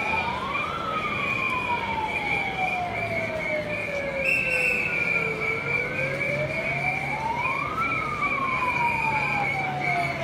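A siren wailing in slow cycles: it climbs to its peak just under a second in, falls slowly for about four and a half seconds, climbs again to peak about eight seconds in, then falls again. A steady high-pitched tone sounds alongside it.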